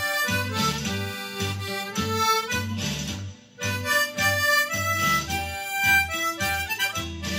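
Harmonica playing a slow melody over a karaoke backing track with a steady bass beat, with a short break in the tune about halfway through.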